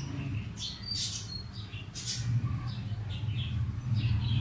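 Hands rolling soft mashed-potato dough into a finger shape between the palms, with soft rubbing and several short, high squeaks, over a steady low hum.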